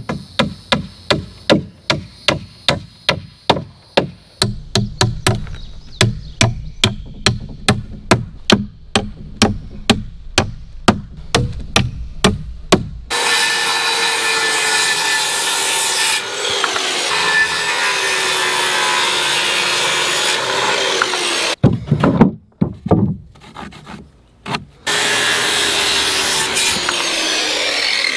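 Nails being driven into pine framing with a hammer, about three strikes a second, followed by a corded circular saw cutting lumber twice, its motor tone dropping in pitch during each cut, with a few knocks between the cuts.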